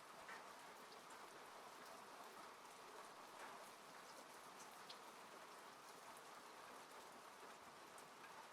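Faint, steady rain falling on a car, heard from inside the cabin, with scattered single drops tapping.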